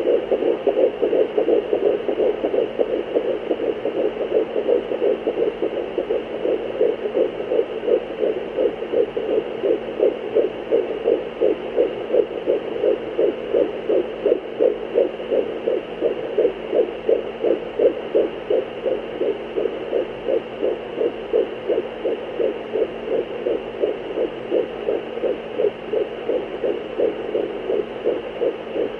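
Fetal heartbeat picked up by a handheld fetal Doppler and heard through its speaker: a fast, even run of whooshing beats, a little over two a second, the quick rate of an unborn baby's heart, over a steady hum.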